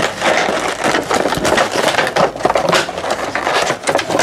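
Stiff clear plastic blister packaging crackling and crinkling as hands pull it apart to free a die-cast toy, a dense, irregular run of snaps and crackles.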